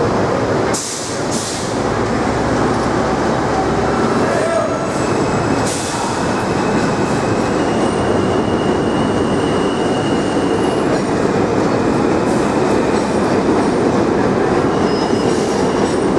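New York City subway train running on the rails, a steady loud rumble of wheels and cars, with a couple of short hisses about a second in and a faint wheel squeal partway through.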